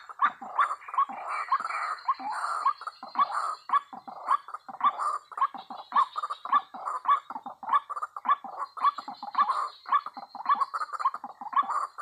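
White-breasted waterhen (ruak-ruak) calling: a rapid, even series of short, harsh calls, about three a second, without a break.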